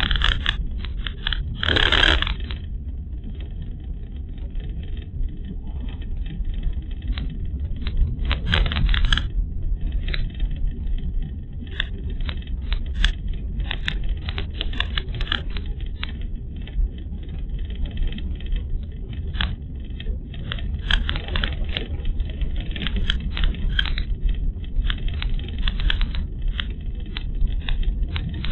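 A car driving on a rough, narrow road, heard inside the cabin through a dashcam microphone. A steady low road rumble runs under frequent small clicks and rattles, with louder knocks about two seconds in and again around nine seconds.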